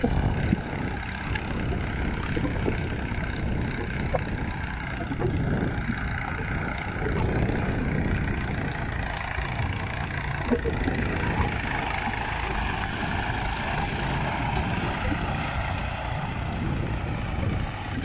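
Diesel farm tractor engine running steadily while pulling a tine cultivator through tilled soil.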